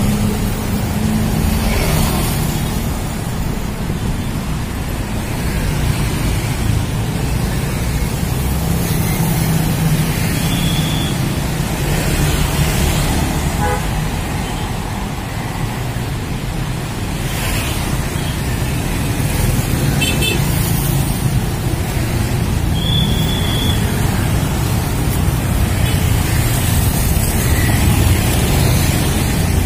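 Busy road traffic of motorcycles and cars passing close by, a steady rumble. Two short high toots cut through it, about ten seconds in and again about twenty-three seconds in.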